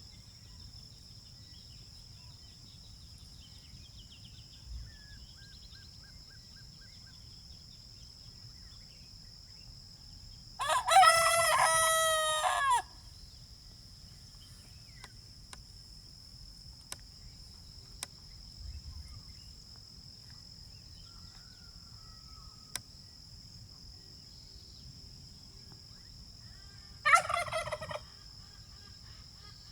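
A rooster crows once, a drawn-out crow of about two seconds near the middle. Near the end comes a short rattling call, a turkey gobble. A steady high-pitched insect drone runs underneath.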